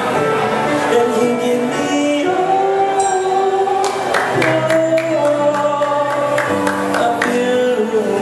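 Pop song performed with a singer and band over a venue sound system: the voice holds long notes over sustained chords, with drum strikes in the middle.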